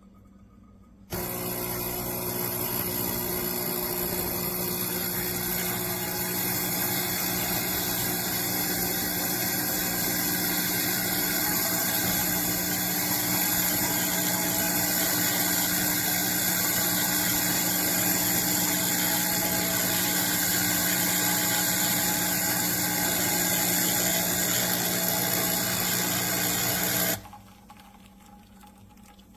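CHULUX Slim espresso machine's pump running steadily, a constant hum with hiss over it. It switches on about a second in and cuts off suddenly near the end.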